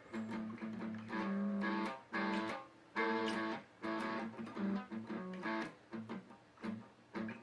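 Guitar played slowly, chords strummed about once a second with shorter plucked notes toward the end.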